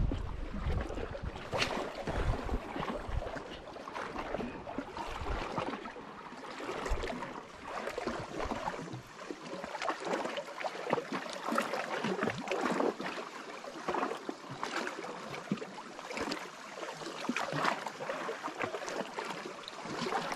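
Small waves lapping and sloshing irregularly against the rocks below, with wind rumbling on the microphone for the first few seconds.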